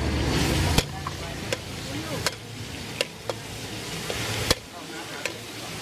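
Oil sizzling in a wok, with a metal wok spatula clinking and scraping against the pan about once a second.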